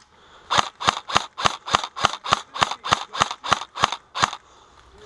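Airsoft rifle firing a rapid string of about a dozen single shots, roughly three a second, each a sharp crack, stopping a little after four seconds in.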